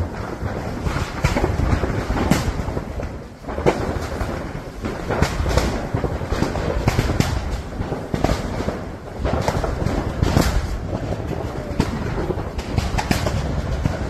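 Large industrial building fire burning fiercely: a steady rushing noise with rapid, irregular sharp cracks and pops, and now and then a louder bang.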